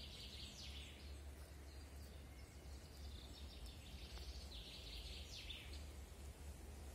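Forest songbirds singing: short, quick song phrases that fall in pitch, one at the start and another about four and a half seconds in, over a faint low rumble.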